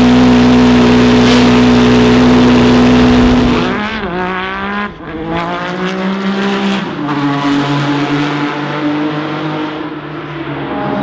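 Jaguar XJR-16 IMSA prototype's 3.5-litre turbocharged V6 running at a steady engine speed on the stand. About four seconds in, the car accelerates, its pitch rising through gear changes, then settles on a steadier, quieter note.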